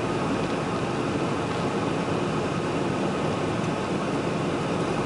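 Steady driving noise inside an old pickup truck's cab while cruising: engine and road noise.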